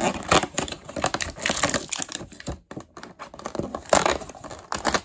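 Cardboard toy-box packaging handled by hand: small cardboard doors pulled out of their slots, with irregular crackling, tapping and rustling of card and plastic, and a brief lull a little past halfway.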